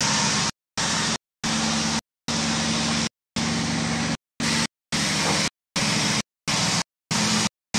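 Sawmill's stationary engine running steadily, driving the saw machinery. The sound keeps cutting out to dead silence in short gaps every half second to a second: the recording's audio drops out.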